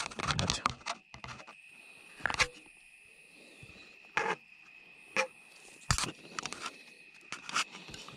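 Scattered short scrapes and clicks as a colour filter and a tomato leaf are handled right against a phone's microphone, over a steady high-pitched tone.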